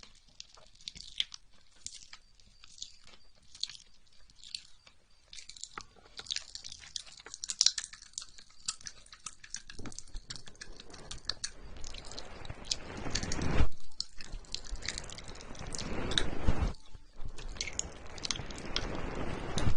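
Close-miked ASMR sounds: wet, sticky clicks and crackles, sparse at first and busier later, with a few louder rushing swells about two thirds of the way in and again near the end.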